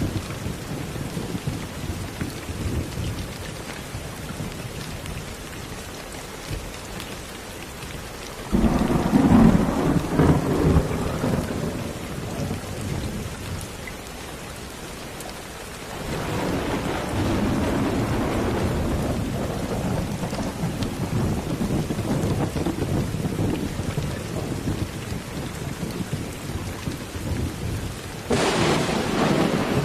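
Steady rain falling with rolls of thunder: a sharp peal about eight seconds in that rumbles on for several seconds, a longer rumble starting about halfway through, and another sudden peal near the end.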